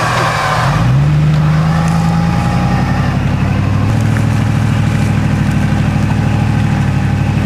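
Off-road vehicle's engine revving up sharply about a second in, then held at steady high revs under load as the vehicle works at climbing an earth obstacle.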